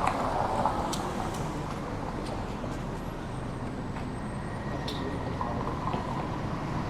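City street traffic ambience: a steady wash of passing vehicles, with a few faint clicks.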